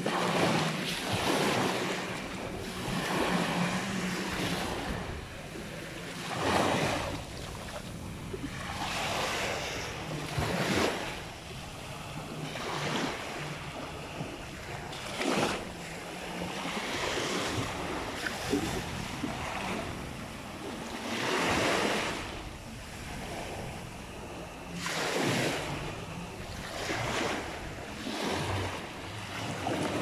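Small waves breaking and washing up a sandy shore, a rush of surf every few seconds, with wind buffeting the microphone. A faint steady engine drone from jet skis on the water comes and goes underneath.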